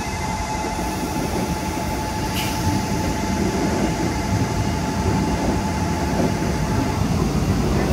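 Korail electric commuter train passing close by over a level crossing: a steady low rumble of wheels on the rails that grows slightly louder, with a steady high tone that stops about seven seconds in.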